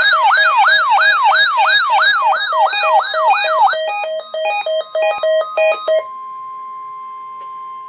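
Weather radio test alert signal: an electronic siren sweeping up and down about three times a second, then about two seconds of pulsed beeps at several pitches. About six seconds in, a single steady tone takes over, the warning alarm tone.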